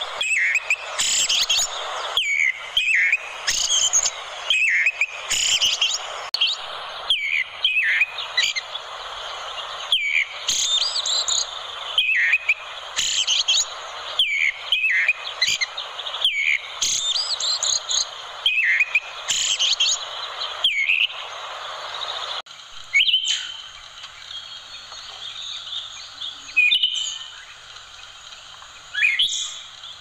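Eyebrowed thrush singing: short, high chirping phrases repeated every second or so over a steady hiss, which drops away about three quarters of the way through, leaving only a few scattered calls.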